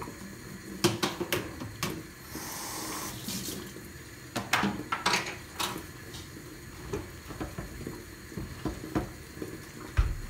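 A kitchen tap runs briefly into a sink while a plastic food container is rinsed, with several sharp knocks and clatter as it is handled and set down. There is a low thump near the end.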